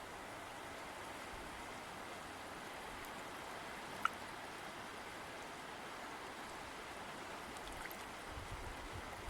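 River water flowing steadily with an even rushing sound. A single brief high blip comes about four seconds in.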